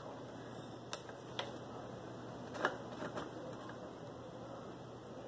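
Permanent marker tracing around a bottle neck on a plastic PET jug: faint, with a few light clicks and taps of the plastic, the loudest about two and a half seconds in.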